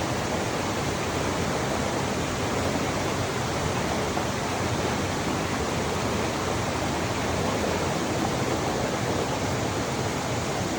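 Steady rush of flowing water, an even hiss with no distinct splashes or other events.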